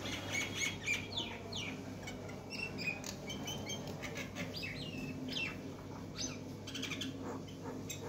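Mynah calling from close by: a quick, varied run of chirps, sweeping whistles and clicks, heard over a low steady hum.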